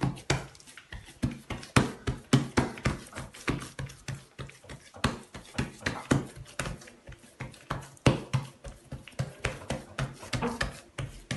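Hands patting and pressing a round of stuffed bread dough flat in a ceramic dish: an irregular run of soft slaps and taps, several a second.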